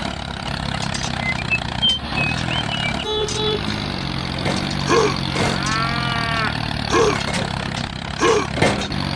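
Tractor engine running steadily, with several short calls over it, a few seconds apart.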